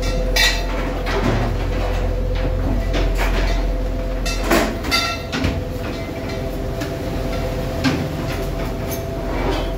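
Fishing boat's engine running with a steady low drone, with a few short clanks and knocks from gear on the deck as buoys and line go over the stern.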